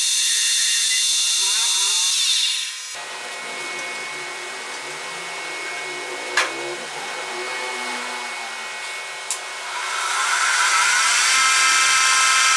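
Metal lathe running, its motor and gearing giving a high whine as the tool cuts the end of a round metal bar. About two and a half seconds in the whine drops away to a quieter stretch with two sharp clicks, then the lathe runs up and cuts again near the end.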